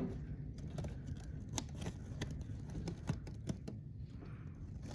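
Low steady rumble of blizzard wind, with scattered light clicks and ticks at an irregular pace.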